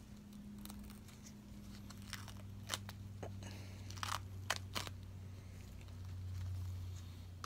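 Gloved hand handling dressing materials at a chest catheter site: a few short, scratchy crackles and rustles spaced irregularly, over a low steady hum.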